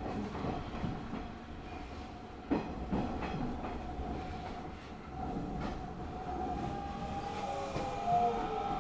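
Hanshin 5500 series electric train running: a steady rumble and whine, with a few sharp wheel clicks over rail joints, the loudest about two and a half seconds in. Near the end, gliding tones rise and fall over the running noise.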